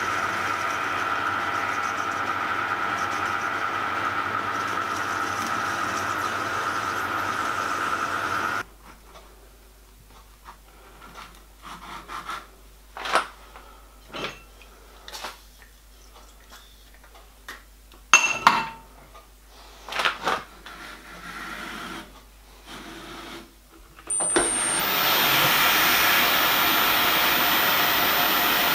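Metal lathe running steadily with a constant tone, then cut off; a stretch of scattered clicks and knocks as parts are handled, and near the end the lathe starts again and runs steadily while a cylinder block is lapped by hand on a spinning plastic lap.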